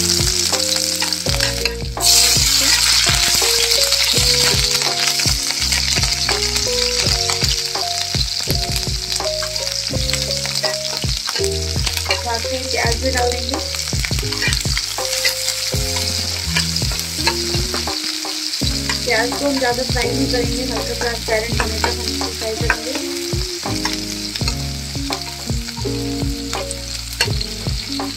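Garlic, sliced onion and green chillies sizzling in hot mustard oil in a kadhai, with a metal spatula scraping and clicking against the pan as it stirs. The sizzle gets suddenly louder about two seconds in.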